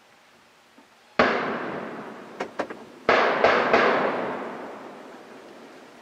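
Gunshots with a long echo: one shot about a second in, a few faint sharp clicks, then three quick shots about a third of a second apart, the echo dying away over about two seconds.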